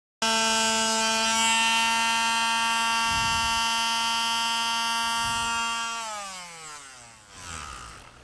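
Belt sander running with a steady, noisy whine, then switched off about six seconds in, its pitch falling as the motor winds down.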